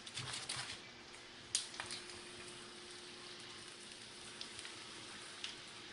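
Hot cooking oil sizzling and crackling around pieces of frying chicken, a steady hiss with a sharp click about one and a half seconds in.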